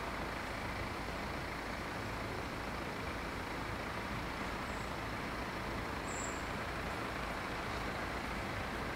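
Steady rushing outdoor background noise with no distinct events, and two faint brief high chirps about halfway through.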